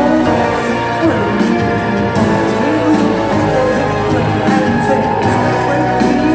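Indie rock band playing live, with drums, bass, guitars and keyboards, heard from the audience in a large theatre.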